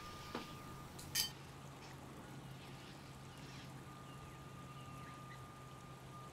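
A spoon clinks once, sharply, against a ceramic bowl about a second in, over a low steady hum. Faint high chirps follow.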